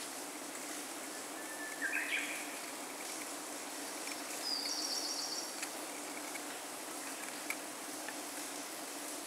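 Outdoor ambience: a steady background hiss with a few short bird calls, a chirp about two seconds in and a higher trill around five seconds.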